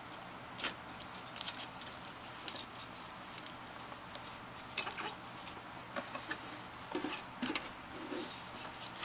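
Light, irregular clicks, taps and rubbing from tape reels being fitted and tape being threaded on a Sony TC-200 reel-to-reel recorder.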